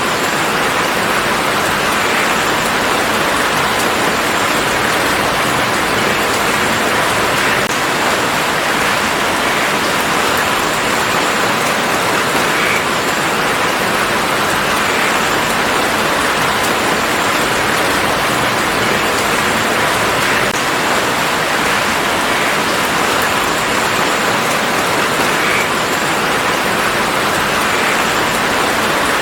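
Steady rain falling in a garden, an even hiss with scattered drips and drop ticks.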